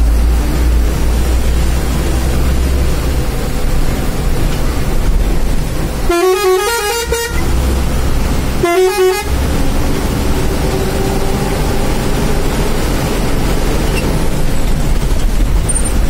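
A heavy vehicle's air horn sounds two blasts over the steady rumble of its engine in the cab. The first comes about six seconds in and lasts a little over a second, with quick stepping notes. The second, shorter one comes about a second and a half later.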